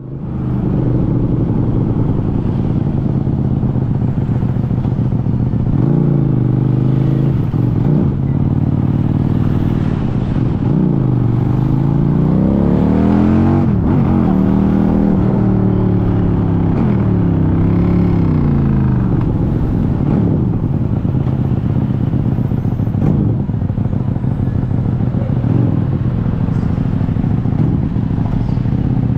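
QJMotor SRV400 V-twin motorcycle engine running under way, its pitch rising as it accelerates and dropping back at gear changes several times through the middle, then running steadier at lower revs in slow traffic.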